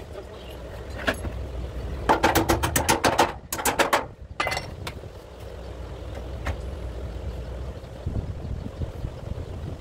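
Steady low hum throughout. About two seconds in comes a rapid run of sharp clicks, roughly a dozen a second, lasting about a second, followed by two shorter clusters of clicks around four seconds.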